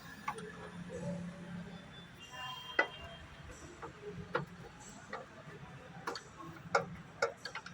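Scattered, irregular metallic clicks and taps of hand tools working in a car's engine bay, over a faint steady hum.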